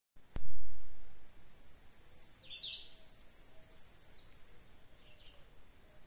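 A single low thump about half a second in, then a chorus of small birds chirping and trilling high and fast, with a few short downward-sliding calls.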